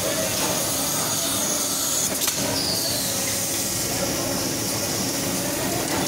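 Steady machinery noise of a compressor assembly line, running with a constant hiss, with a sharp click about two seconds in.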